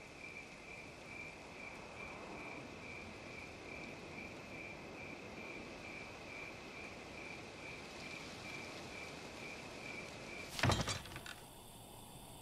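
Cricket chirping steadily, a high note pulsing evenly over a quiet room, until a sudden loud knock near the end. After the knock the chirping stops and a low hum is left.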